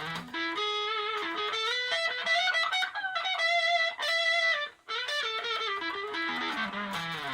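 Electric guitar played through a Raizin overdrive/distortion pedal. It plays a single-note line that climbs step by step and then comes back down, with a brief break about two-thirds of the way through.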